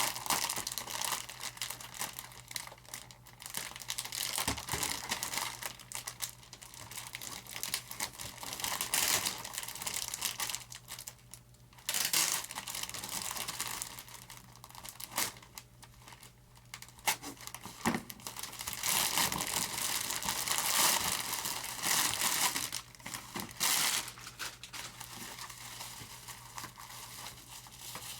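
Plastic packaging crinkling and tearing in irregular bursts as foam model parts are cut and unwrapped with a knife.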